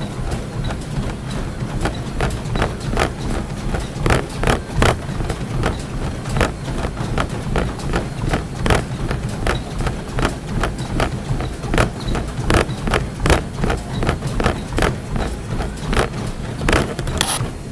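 Running footfalls striking a treadmill belt in a quick, even rhythm of about two to three steps a second, over the machine's steady low hum.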